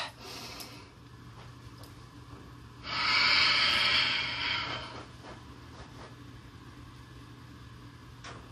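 A person's long audible breath, a smooth hiss lasting about two seconds, about three seconds in. Otherwise there is a low steady hum with a few faint knocks.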